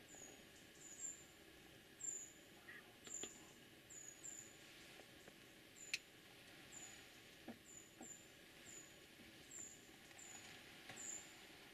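Near silence with a small bird's faint, high, thin chirps repeating about once or twice a second, each gliding slightly down. A single sharp click about six seconds in.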